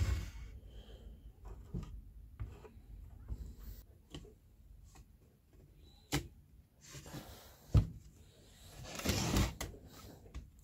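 Wooden cabinet-door frame pieces being handled and fitted together. Scattered light clicks and a few sharp wooden knocks, the loudest about eight seconds in, with rustling in between.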